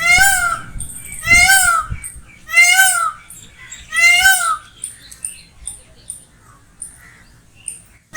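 Peacock (Indian peafowl) calling: four loud calls about a second and a half apart, each briefly rising and then falling in pitch, then only a few faint short sounds.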